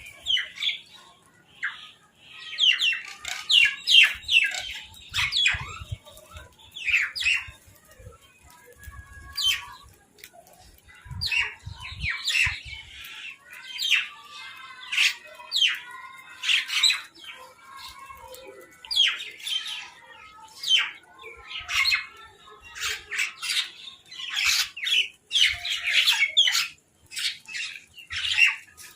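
Crows and mynahs squawking over food: harsh, short calls in quick succession with many overlapping, and a few faint low thuds around the middle.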